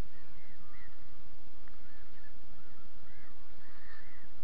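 Distant birds calling: short, arched chirps repeated every half-second or so over a steady background hiss.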